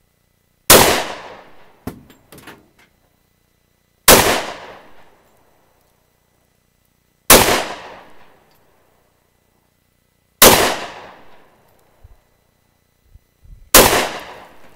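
Glock 23 Gen 3 .40 S&W pistol firing five single shots, evenly paced about three seconds apart, each with a ringing tail of about a second. Faint clicks follow the first shot.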